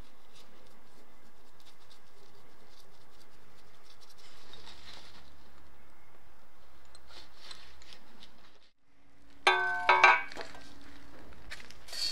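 Soft, light scratching and ticking as a paintbrush dabs browning solution onto a threaded steel lock nut. After a short silence come two loud, ringing metallic clanks about half a second apart.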